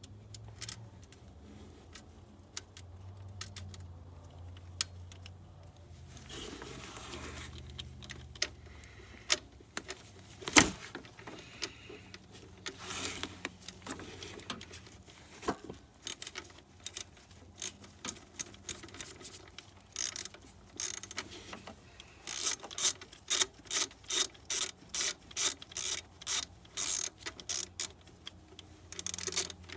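Ratchet wrench clicking as a nut is run down on the alternator cable terminal. Scattered clicks and one sharp knock come about ten seconds in. In the last third the ratcheting settles into a steady run of about two strokes a second.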